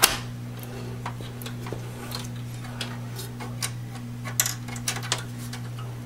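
Scattered clicks and knocks of an Asus GTS 450 graphics card being handled and seated into its slot in the PC case, with a sharp knock at the start and a cluster of clicks about four to five seconds in, over a steady low hum.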